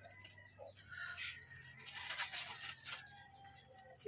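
Kitchen knife slitting open an aluminium foil packet, the foil crinkling and tearing in short, faint scratchy bursts, busiest in the middle.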